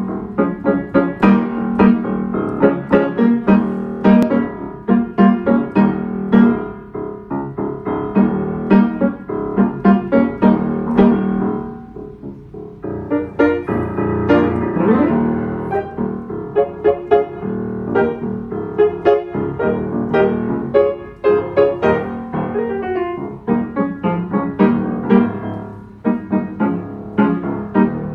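1988 Yamaha YU1 upright piano being played: a continuous piece of many quick notes and chords that thins out briefly about twelve seconds in, then picks up again.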